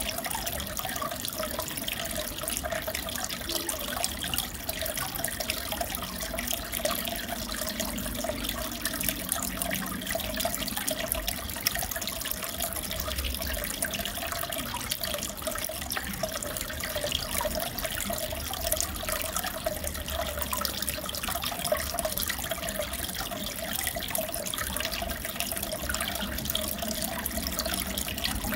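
Aquarium water trickling and bubbling steadily, with a constant fine crackle.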